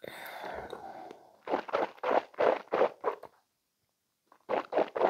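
A sip of whisky drawn from a tasting glass with a slurping hiss of air, followed by a run of short breathy mouth and breath sounds as the spirit is tasted, about three a second, then a pause and more near the end.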